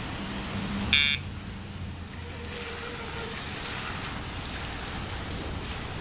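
A single short, high-pitched beep about a second in, over a steady background hiss.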